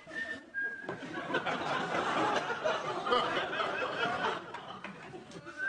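Someone whistling a tune in held notes at the start and again near the end, with studio audience laughter swelling in between.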